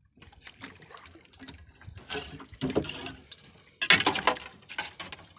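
Water splashing and dripping at the side of a small boat as a fishing handline is hauled in by hand, with irregular knocks and scrapes and a louder splash about four seconds in.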